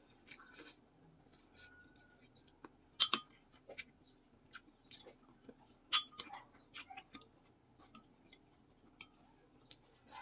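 Someone eating noodles: slurping and chewing, with sharp clicks of chopsticks and a soup spoon against the bowl. The loudest clicks come about three and six seconds in.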